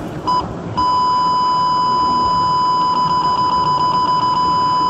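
Yupiteru Super Cat radar detector sounding its alert for an MSSS mobile speed camera's radar: a short beep, then from about a second in a steady, unbroken high beep tone.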